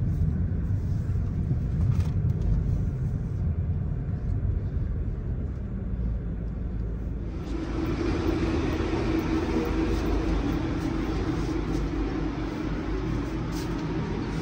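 Low rumble of a car ride, steady through the first half; about halfway through it changes to a brighter, even hiss with a steady hum.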